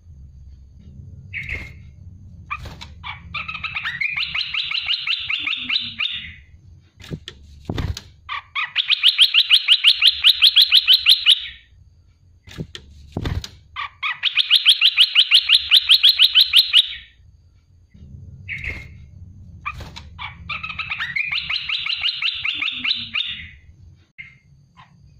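Olive-winged bulbul singing: four long phrases of rapid repeated notes, each lasting about three seconds, with short pauses between. A low hum sits underneath, and there are two short thumps between the phrases.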